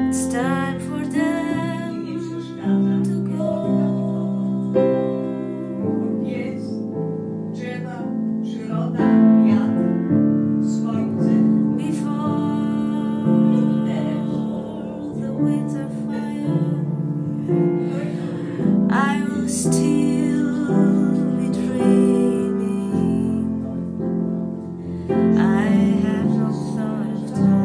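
Acoustic piano playing slow, sustained chords under a woman singing a slow ballad, with her voice coming in phrase by phrase.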